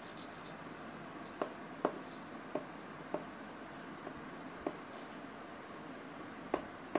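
Chalk writing on a chalkboard: about seven sharp taps as strokes and letters are started, spread unevenly, with faint scratching between them.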